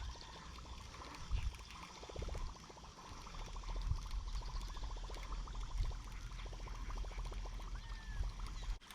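Fishing reel being cranked through a topwater retrieve: a fast, even run of ticks that stops and starts, with water gurgling and splashing in the background.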